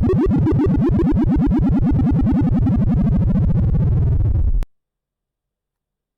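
Sorting-algorithm sonification: a rapid stream of short synthesized beeps, many per second, each pitch set by the value being accessed, sinking lower overall. It stops abruptly about four and a half seconds in, and silence follows.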